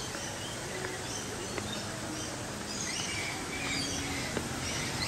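Birds chirping: scattered short, high calls over a steady background of outdoor noise.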